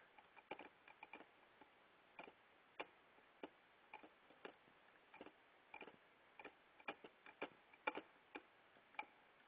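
Faint, sharp clicks at uneven spacing, about two a second, of a Swiss Army knife blade tapping on a MacBook Pro's bare circuit board, trying to hit the spot that powers the laptop on.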